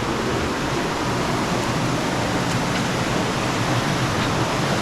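Steady rushing of water from a forest creek and waterfall, an even, unbroken hiss.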